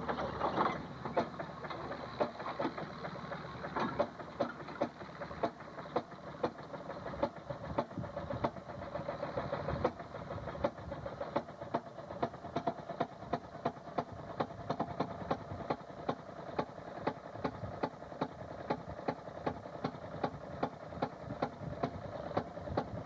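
Railroad motorcar (track speeder) running on the rails, with a regular run of sharp pops or clicks about two a second over a steady running sound.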